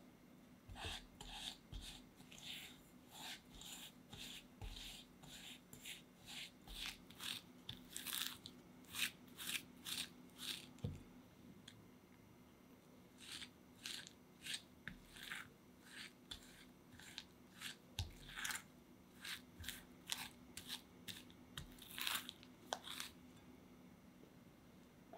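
Silicone spatula stirring softened butter and granulated sugar in a glass bowl: repeated gritty scraping strokes, about two a second, with a short pause about halfway through.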